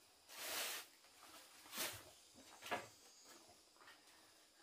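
A short scraping swish, then two sharp knocks about a second apart, followed by a few fainter taps: objects being handled and set down.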